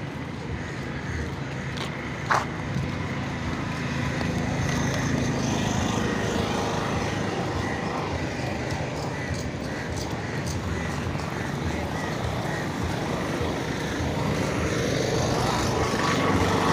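City street ambience: road traffic and people talking nearby, with one sharp click about two seconds in.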